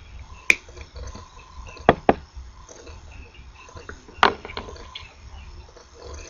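Diagonal cutters snipping excess component leads off a small circuit board: four sharp snips, one about half a second in, a close pair about two seconds in, and one about four seconds in, followed by a few fainter ticks.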